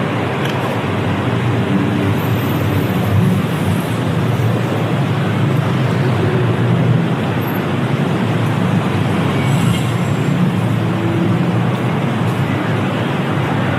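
Street traffic in a city: a steady, continuous wash of engine and tyre noise from passing vehicles.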